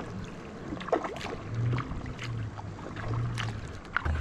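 Tandem kayak being paddled: water splashing and dripping off the paddle in a few separate strokes, with a low rumble that comes and goes.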